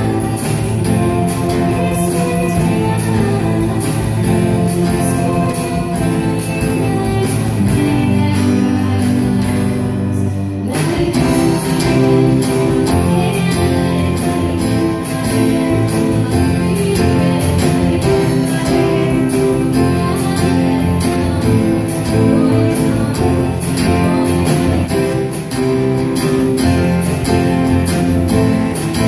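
Live band playing an original pop-rock song: acoustic guitar, electric guitar, keyboard and drums, with a female voice singing. About ten seconds in the sound breaks off for a moment, then the band carries on.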